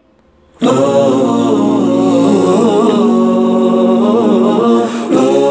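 An Arabic song starts abruptly about half a second in: a voice sings long, wavering notes over a steady held accompaniment.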